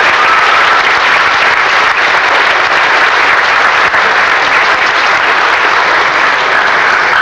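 Theatre audience applauding, dense and steady clapping that breaks out as the musical number ends.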